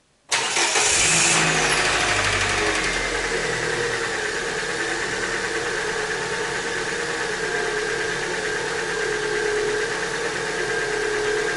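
Chery Indis's four-cylinder petrol engine starts at once, a moment in, revving high and settling to a steady idle over the next couple of seconds. This is the first start after an oil and filter change.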